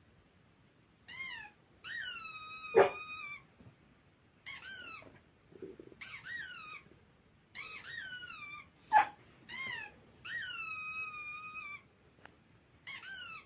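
A series of about eight high-pitched squeaks, some short and some drawn out for about a second, each dipping and then levelling off. Two sharp knocks come among them, about three seconds in and again about nine seconds in.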